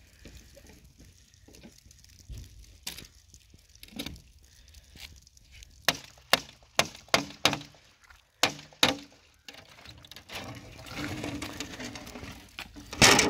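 Sharp knocks and clinks, about eight in quick succession around the middle, then a rough scraping and one loud bang near the end, as a board is handled and lifted at the edge of an icy flat roof.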